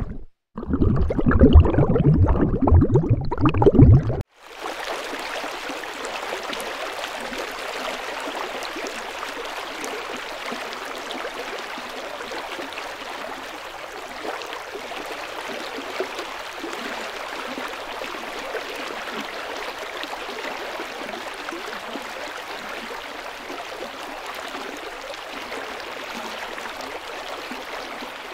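Steady rushing of running water, like a stream. For the first four seconds there is a louder, deeper churning water sound, which cuts off suddenly before the even rushing takes over.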